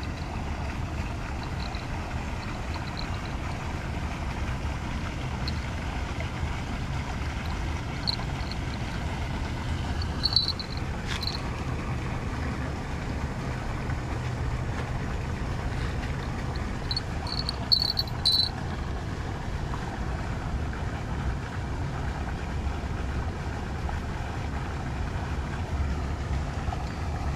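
Steady low outdoor rumble, with a few short high chirps about ten seconds in and again a little before twenty seconds.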